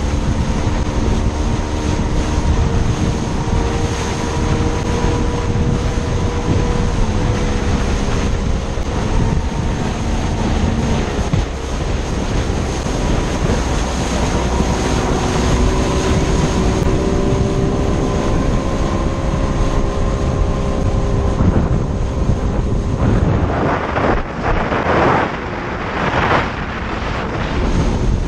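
Outboard motor of a small speedboat running at speed, its drone shifting in pitch through the turns, under heavy wind buffeting on the microphone and rushing water from the wake. Several loud rushing surges come near the end.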